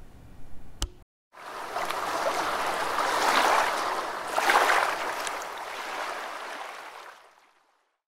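A sharp click, then rushing, splashing water that swells twice and fades out near the end.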